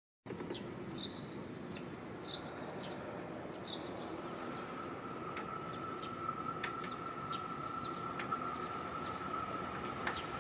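Birds chirping in short, falling calls over the low, steady rumble of an electric-locomotive freight train approaching in the distance. From about four seconds in, a steady high whine joins.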